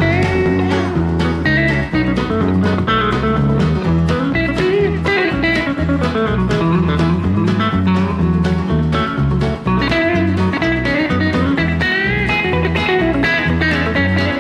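Country instrumental with a Telecaster electric guitar playing fast chicken-picked (hybrid-picked) lead lines full of string bends, over a band with bass and drums.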